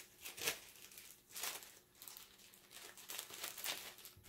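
Plastic wrapping crinkling in irregular short rustles as the compost pail's filter discs are handled and unwrapped.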